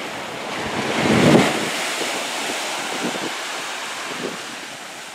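Small waves breaking and washing up a sandy beach, loudest about a second in, with gusts of wind on the microphone.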